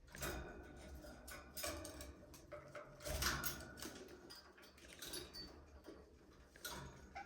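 Budgerigars chirping and chattering, a busy mix of short calls and clicks, loudest about three seconds in.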